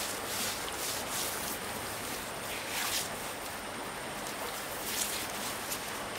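Water running steadily, with several short splashes.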